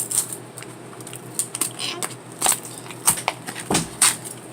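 Toy packaging being handled: irregular crinkles and sharp clicks of plastic and paper wrapping, with a few louder crackles.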